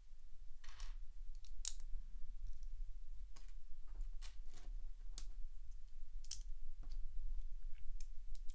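LEGO plastic bricks being handled and pressed together, giving irregular sharp clicks and taps.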